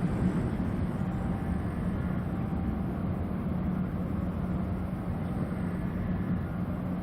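Tugboat diesel engines running with a steady low drone and a constant hum.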